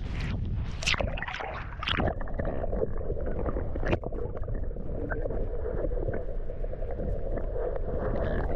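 Wind buffeting the microphone, a steady low rumble, with a few sharp knocks in the first two seconds.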